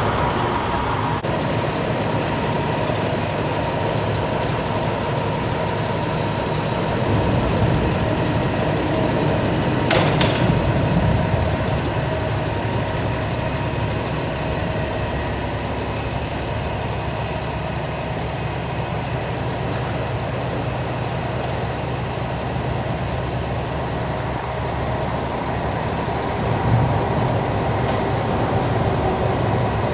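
Aerial ladder fire truck's engine running steadily at idle as the aerial ladder is brought down. There is one sharp knock about ten seconds in.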